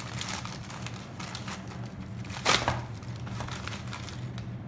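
Grey plastic mailing bag being torn open and crinkled by hand, an irregular run of crackles with one louder burst about two and a half seconds in.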